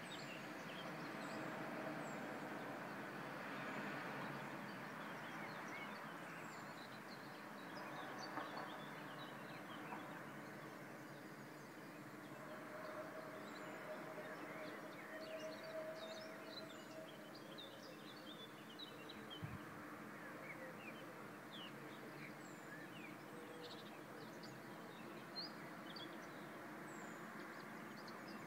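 Faint, steady hum of a distant city with many small birds chirping over it: the dawn chorus.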